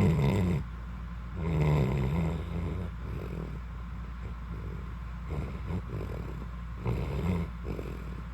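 A dog snore-growling in its sleep: rough, rumbling growls on its breaths, two stronger ones in the first couple of seconds and weaker ones later, over a steady low hum.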